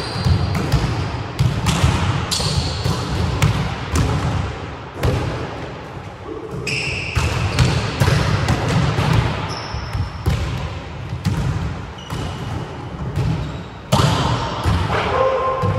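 Volleyballs being hit and passed: many irregular sharp slaps of hands on balls and thuds of balls on the wooden floor, overlapping and echoing in a large hall.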